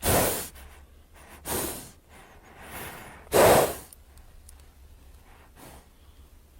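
A horse snorting: several short, breathy blasts of air through the nostrils, the loudest about three and a half seconds in, then fainter ones.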